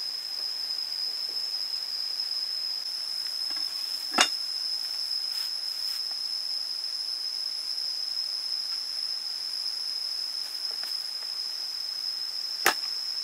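Steady high-pitched insect drone over a constant hiss, with two sharp knocks, one about four seconds in and one near the end, which are the loudest sounds.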